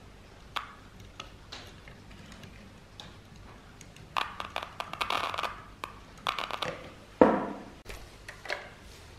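Scratchy clicks and short crackles as multimeter test probes are pressed and rubbed against a small tweeter's terminals, busiest in the middle of the stretch, with a single louder knock a little after seven seconds.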